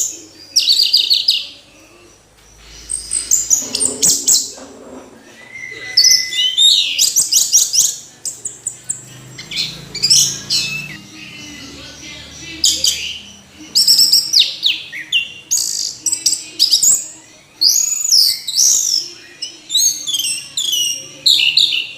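Orange-headed thrush singing: a long run of varied, quick whistled phrases, many sweeping rapidly up and down, delivered in bursts with short pauses between them.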